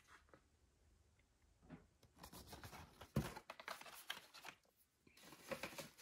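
Faint crinkling and clicking of blister-packed diecast car cards being handled and laid on a stack, with one sharper knock about three seconds in. Near the end comes rustling from a hand rummaging in a cardboard shipping case.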